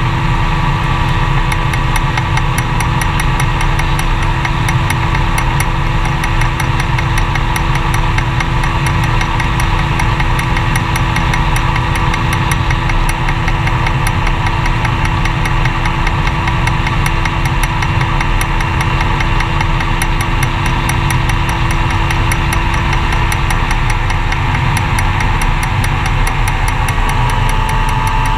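Magni M-22 Voyager gyroplane's engine running at a steady, even speed, with a fast, even ticking over the drone.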